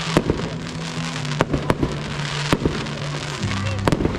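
Fireworks display: sharp bangs of shells bursting, about one every second or so, over a continuous crackle, with music playing underneath.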